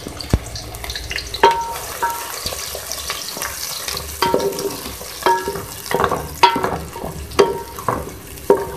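Freshly added sliced onions sizzling in hot oil in a metal pot while a wooden spoon stirs them. The spoon knocks and scrapes against the pot about once a second, and each knock leaves a brief metallic ring.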